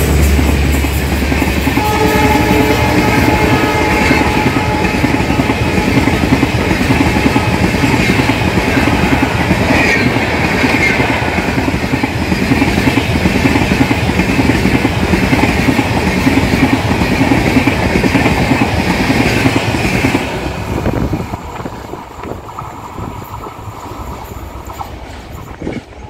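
Passenger coaches of a diesel-hauled express train running past at speed, a loud steady rumble and clatter of wheels on the rails. A horn chord sounds faintly a couple of seconds in. The noise drops away after about 21 seconds as the last coach passes and the train moves off.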